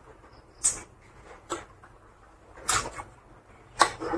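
A person chewing a mouthful of pork curry and rice close to the microphone, heard as about five short, sharp mouth sounds roughly a second apart.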